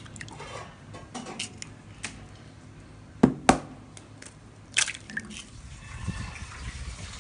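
Raw eggs cracked on the rim of a ceramic bowl: two sharp taps close together a little past three seconds in and another near five seconds in, with soft wet drips of the egg dropping into the bowl.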